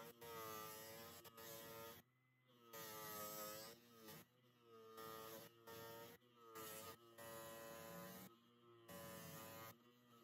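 Electric motor spinning a small wire wheel while a steel compass leg is held against it to clean it. The motor buzzes and hums, and its pitch sags and recovers again and again, with a hiss from the wire bristles and short quieter gaps as the work is moved.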